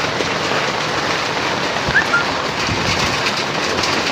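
Steady rain falling, an even hiss, with one short high chirp about two seconds in.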